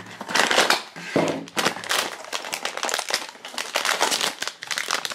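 Silver foil figure bag crinkling and crackling as it is pulled out of a cardboard blind box and torn open by hand, in a run of irregular bursts.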